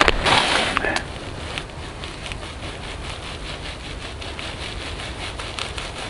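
Footsteps crunching in snow, two or three heavy steps in the first second, then a quiet stretch with faint scattered small clicks.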